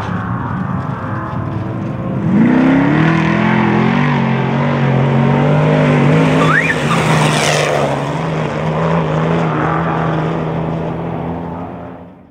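Off-road race truck engine running hard, its revs climbing about two seconds in and then holding high over tyre and dirt noise, before the sound fades out near the end.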